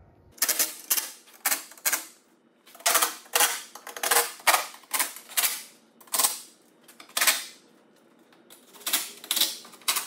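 Small Milwaukee cordless impact hammering 10 mm skid plate bolts in short rattling bursts, a few quick hits on each bolt with short pauses between bolts. The bolts are being snugged to about 7 N·m.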